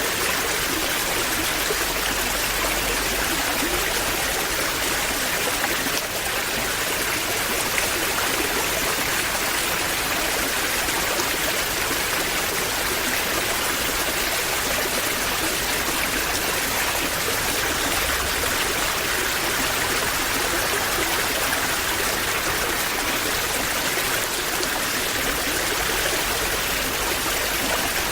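Waterfall: water falling and rushing in a steady, unbroken roar of splashing.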